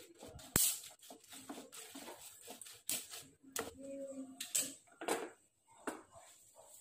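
Wooden spatula stirring dried red chillies in a nonstick pot during dry roasting: scraping and sharp knocks against the pan, with the chillies rattling.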